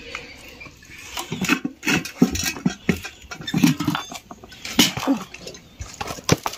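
Plastic mesh basket being handled, the spiny gourds inside shifting and knocking with a string of clicks and rustles, the loudest knocks near the end. A few brief low pitched sounds come in between.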